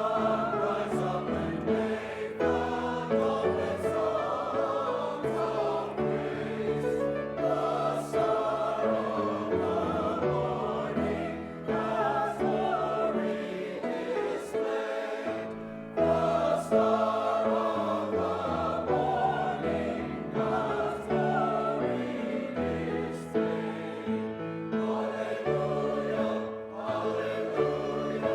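A choir singing a piece in sustained phrases, with short breaths between phrases.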